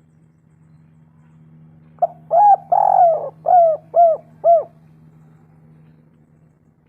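Spotted dove cooing: one phrase of about six notes, a short note, then a longer drawn-out coo, then three short coos evenly spaced, about half a second apart. A steady low hum runs underneath.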